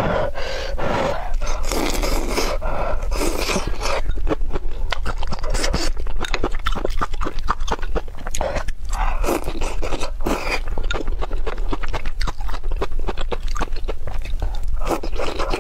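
A person eating: slurping cellophane noodles and soup and chewing, with a dense run of wet mouth clicks and smacks.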